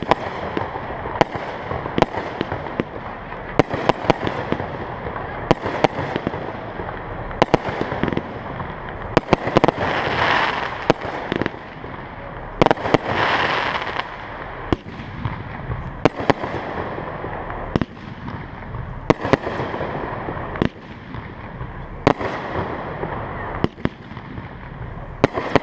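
Fireworks display shells launching and bursting: a string of sharp bangs, one every second or two, over continuous crackling hiss, with two louder hissing spells about ten and thirteen seconds in.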